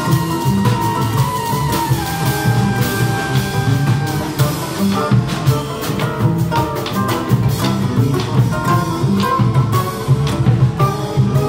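Acoustic guitar and drum kit playing live instrumental music: a melody of long held notes over steady drum and cymbal strokes.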